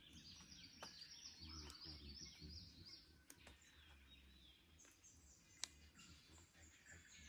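Faint dawn chorus of birds in an Australian forest: many overlapping quick chirps and repeated trill notes, with a low rumble underneath. A single sharp click comes about five and a half seconds in.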